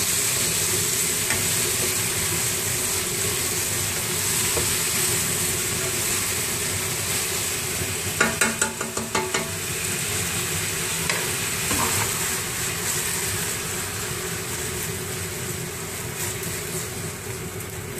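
Diced chicken and beef sizzling steadily as they fry in oil in a non-stick (Teflon) pan, turned with a wooden spatula. About eight seconds in, a quick run of clatters and scrapes comes from the spatula against the pan.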